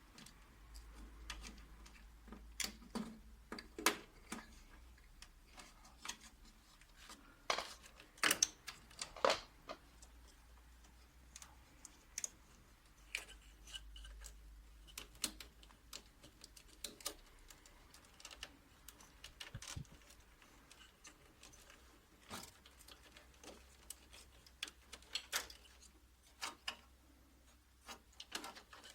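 Irregular small clicks, taps and knocks of hands working inside a Toshiba 2303A copier, putting its cables back in place and handling plastic parts, over a faint low hum.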